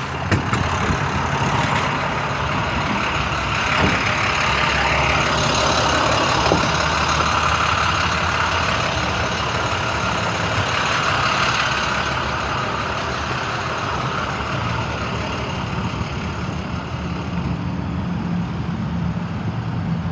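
Heavy truck engine running steadily, with a hiss that swells through the middle and then fades.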